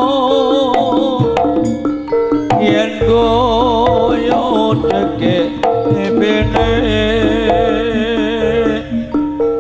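Live East Javanese barongan gamelan accompaniment: kendang hand drums beating under a wavering, ornamented melody line with strong vibrato.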